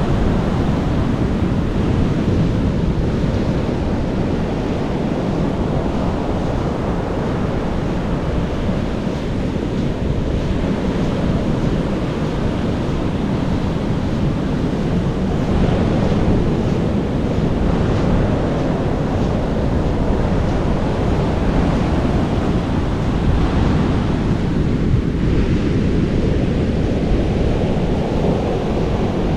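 Ocean surf washing against a rocky shore, with waves swelling every several seconds, and wind buffeting the microphone.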